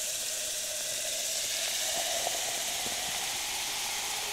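Steady background hiss with no clear source, with a couple of faint short clicks partway through.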